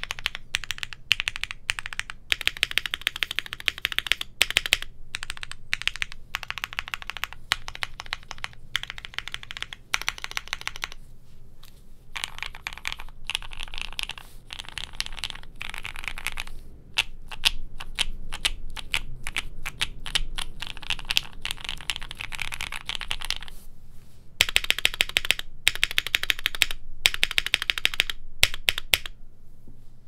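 Typing on a custom mechanical keyboard: an Owlab Jelly Evolv with lubed Gateron Oil King linear switches, a polycarbonate plate in a leaf-spring gasket mount, case, plate and IXPE foam, and GMK keycaps. Fast runs of keystrokes with a few brief pauses, stopping about a second before the end.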